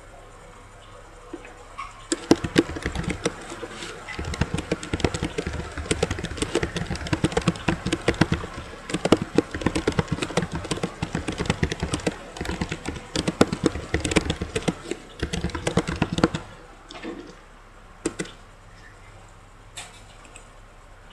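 Fast typing on a computer keyboard, a dense run of key clicks that starts about two seconds in and stops after about sixteen seconds, then a few single clicks.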